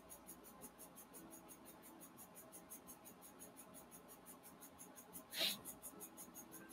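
Faint whirring of a 3D pen's filament-feed motor as it extrudes ABS plastic, with a fast, even high ticking. A brief hiss about five seconds in.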